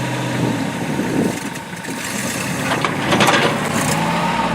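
Engines running at a tow-out in mud, as a tractor pulls a stuck vehicle on a line. A steady low engine hum drops away about half a second in and gives way to rough, mixed noise, and a low hum returns near the end.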